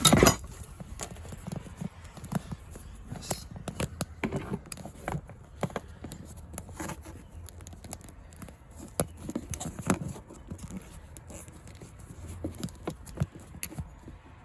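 Irregular clicks, knocks and light clanks of the spare tire tool compartment and its tools being handled, with a louder knock right at the start.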